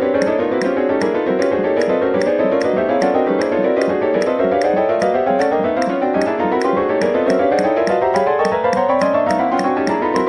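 Computer-rendered notation playback of an atonal ensemble piece. Several piano-like parts play dense, fast chromatic runs, mostly rising, over a steady high ticking percussion pulse.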